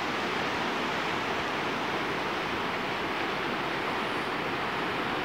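Fast-flowing mountain river rushing, a steady unbroken roar of white water.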